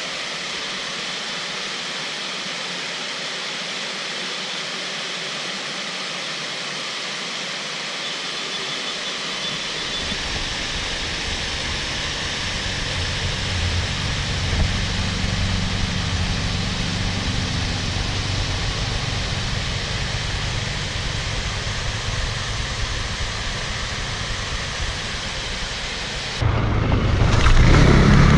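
Steady rushing noise, with a low rumble joining in about a third of the way through. Near the end it switches abruptly to a louder motor revving up.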